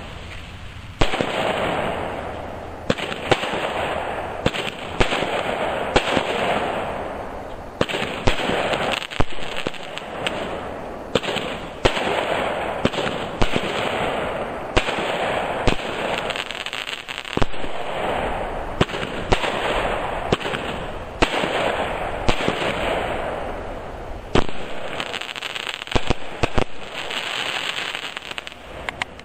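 Rizer 'Applause' consumer aerial repeater cake firing shot after shot: sharp launch thumps and bursts about once a second, irregularly spaced, with a dense crackling hiss from the bursting stars swelling between them.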